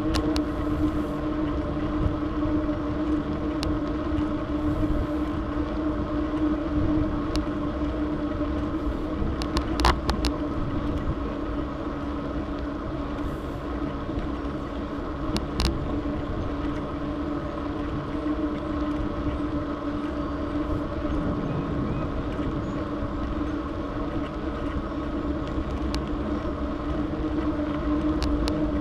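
Bicycle rolling steadily on asphalt: a constant tyre hum with wind rumble on the handlebar camera's microphone, and a few sharp clicks from the bike.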